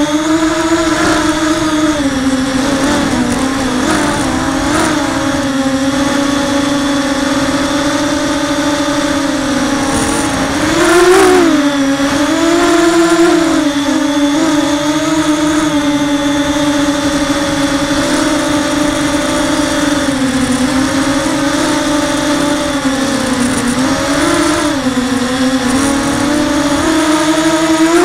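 Electric motors and propellers of an FPV racing quadcopter on a Blackout Super Mini-H frame, whining steadily as it flies, heard close from on board. The pitch rises and falls with the throttle, with the loudest punch and rise about eleven seconds in.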